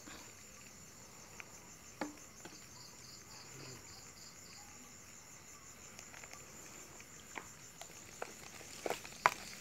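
Night insects chirring in a steady high chorus, with a separate pulsed call for a few seconds mid-way. Scattered soft clicks and knocks, several of them in the last two seconds.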